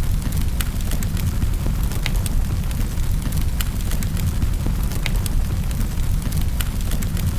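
Wood fire in a fireplace crackling, with scattered sharp pops over a steady low rumble of the flames.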